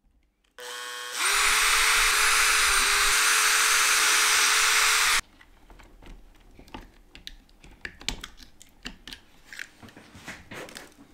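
An electric drill spins up and bores into a metal weight. Its motor pitch drops a little as the bit bites, and it runs steadily for about four seconds before stopping abruptly. Light clicks and scrapes follow as metal shavings are cleared from the fresh hole.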